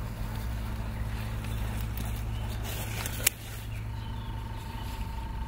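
Steady low hum of outdoor background noise, broken by a single sharp click a little over three seconds in; a faint thin steady tone comes in near the end.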